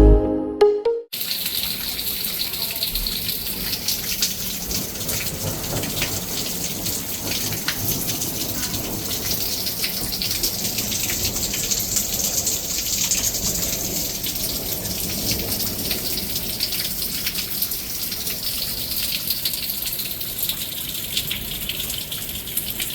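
Hail and heavy rain pelting down, a dense steady patter of many small impacts.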